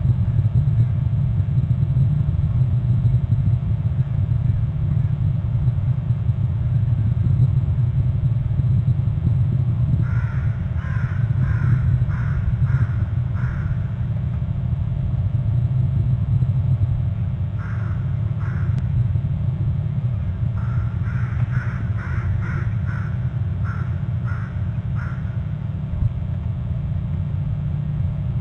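A bird calling in three runs of evenly spaced calls, about two a second, over a steady low rumble.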